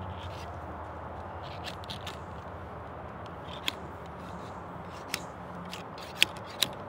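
Ramrod being worked down the barrel of a Thompson Center Hawken muzzleloader to seat the patched lead ball on the powder charge. It gives a few faint ticks, then four sharp clicks in the second half as the rod is rapped down onto the ball.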